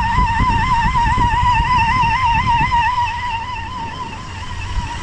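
1998 Toyota 4Runner V6 engine idling with a high-pitched whine that wavers up and down in pitch a few times a second and grows fainter near the end. The whine is not from the air-conditioning compressor, which is not engaged, and its source is still unknown.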